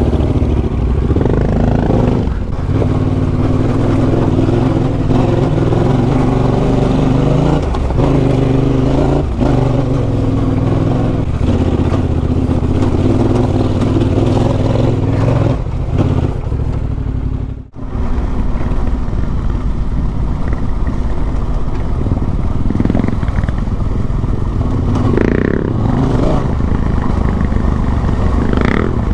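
Adventure motorcycle engine running while riding a dirt trail, its pitch shifting up and down with the throttle. The sound briefly drops out about eighteen seconds in, then resumes.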